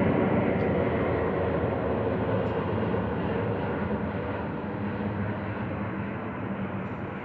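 Airbus A350-900 jet airliner on landing approach, its Rolls-Royce Trent XWB engines giving a steady roar that slowly fades as the plane moves away.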